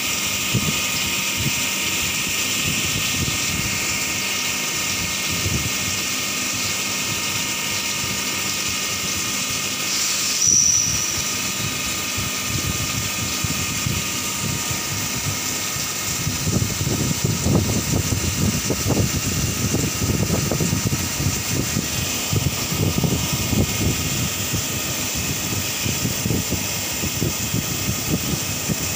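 Turn-mill CNC lathe turning a spinning workpiece under coolant spray: steady machine running with a constant hiss and whine. A brief high tone comes about ten seconds in, and the cutting noise turns rougher and more uneven from a little past halfway.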